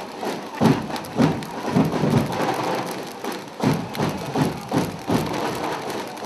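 Stadium crowd noise as a dense, even hubbub, with a supporters' drum beating a thumping rhythm of about two beats a second.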